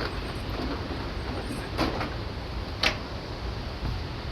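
Pop-up wheelchair platform lift that rises out of the ground, its mechanism giving two short clicks about a second apart over a steady low rumble.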